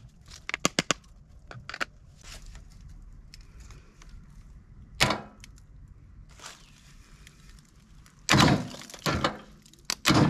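Hand tools and metal battery hardware being handled while a battery is hooked up: a quick run of sharp clicks and clinks near the start, a single louder knock about five seconds in, and a rough clatter near the end.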